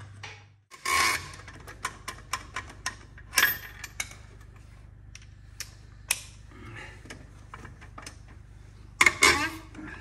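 Hand lug wrench working the lug nuts of a Ford Model A's red wire wheel: irregular metal clicks, clinks and scrapes, with louder clanks about a second in, around three and a half seconds in, and a louder clatter about nine seconds in.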